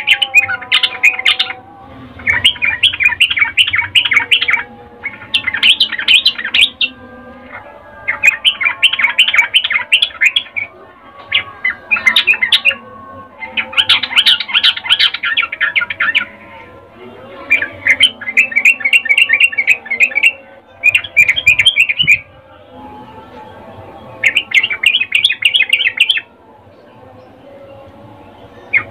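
Female yellow-vented bulbul giving its breeding-condition chattering call: bursts of fast, clipped notes, about nine of them, each one to two and a half seconds long, with short pauses between.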